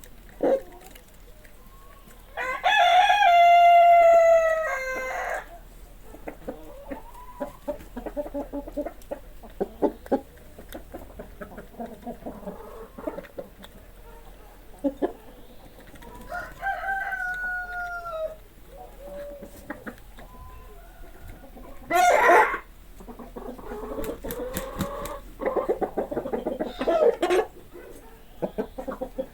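Hens clucking in a henhouse, with a rooster crowing loudly a few seconds in and a fainter, falling crow about halfway through; a loud short squawk comes about two-thirds of the way in.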